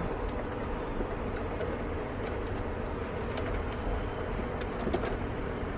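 The Isotherm CR90's 12-volt refrigeration compressor running with a steady hum, a sign it has started up after being plugged into its new controller. A few faint clicks come from wires being handled.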